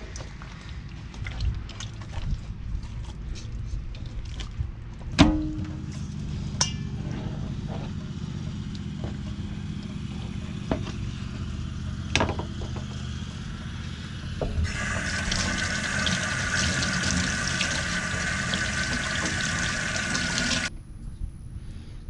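Knife and hands working raw snapping-turtle meat on a plastic cutting board, with scattered knocks and clicks. About fifteen seconds in, water runs steadily for about six seconds and then cuts off suddenly.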